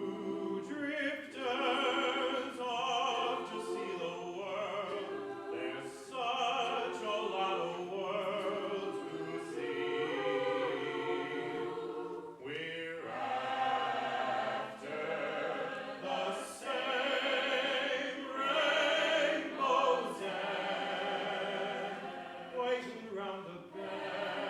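A vocal group singing in multi-part harmony, several voices at once on shifting chords.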